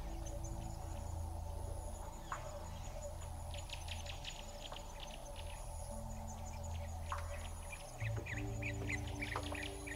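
Birds chirping and calling in quick runs of short notes, with a couple of falling whistles, over soft background music of low held notes that shift about eight seconds in.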